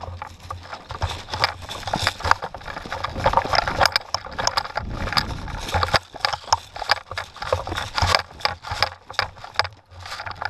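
Footsteps crunching through dry leaf litter and twigs, about two to four steps and knocks a second, mixed with the rattle and knocking of the airsoft rifle that carries the barrel-mounted camera as it is carried along.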